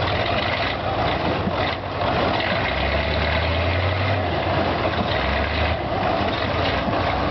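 A heavy vehicle's engine running steadily amid broad noise, with a deeper low rumble swelling from about three seconds in and easing off near six seconds.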